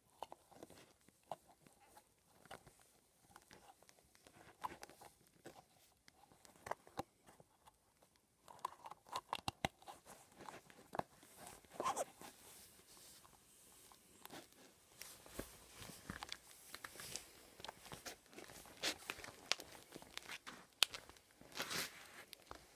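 Handling noise from an old Nike Air Max 95 sneaker: fingers picking and scraping at the plastic air-bubble window and rubber sole, giving scattered clicks, scratches and crinkles. Near the end there are a few sharper knocks as the shoe meets the wooden floor.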